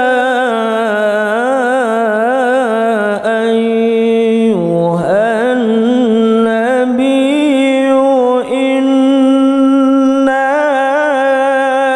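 A man reciting the Qur'an in melodic tilawah style into a microphone, drawing one long ornamented phrase out over many seconds with a wavering, trilled line. The pitch dips low for a moment about five seconds in, then climbs back up and holds, with only brief catches of breath.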